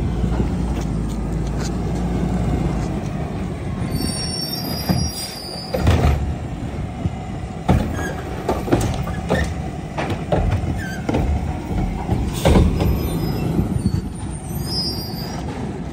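Garbage truck's diesel engine running as its automated arm lifts a wheeled trash cart and dumps it into the carry-can. Several clanks and bangs ring out as the cart is shaken empty and set back down, the loudest about six and twelve seconds in.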